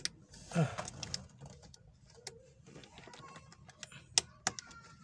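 A few sharp plastic clicks and small knocks as a blade fuse is pushed back into a car's under-dash fuse box, the loudest click about four seconds in.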